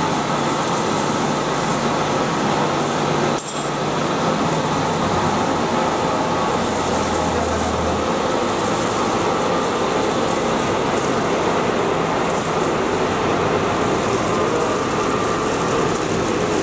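Steady running noise of a paper slitting and rewinding machine, an even mechanical hiss and hum with a brief break about three and a half seconds in.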